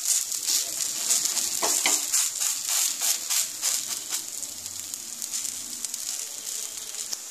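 Oil sizzling and crackling under a lentil-batter pancake frying in a nonstick pan, with a spatula pressing at its edges. The sizzling eases off after about four seconds.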